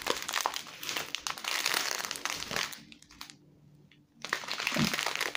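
Small plastic bags of diamond painting resin drills crinkling as they are handled and shuffled. The crinkling stops for about a second a little past midway, then starts again.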